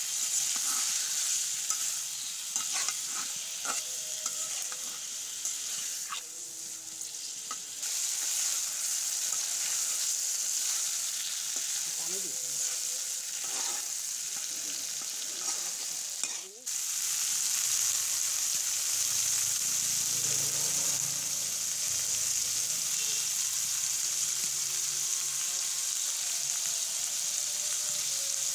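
Spiced pigeon meat sizzling in hot oil in a metal karai, being dry-fried (koshano) on high heat. A metal spatula stirs and scrapes against the pan with many short knocks in the first half. The sizzle drops out for a moment just past the middle, then carries on steadily.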